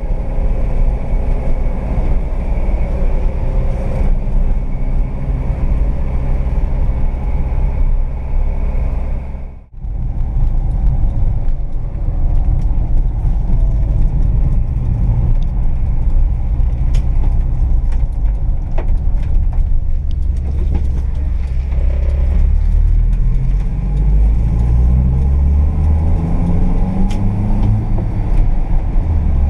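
Volkswagen Kombi's 1.4-litre four-cylinder engine running as the van drives, heard from inside the cabin. There is a brief dip about ten seconds in. Near the end the engine note rises as it accelerates through a gear, then drops.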